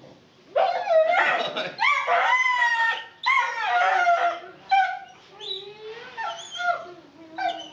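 A dog whining and howling in an excited greeting: a long, wavering, sliding call in the first few seconds, then a run of shorter whines and yowls.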